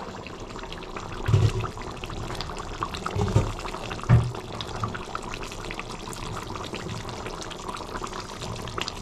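Chhana kofta curry gravy simmering uncovered in a stainless steel pan, bubbling and popping steadily. Three dull low thumps come in the first half.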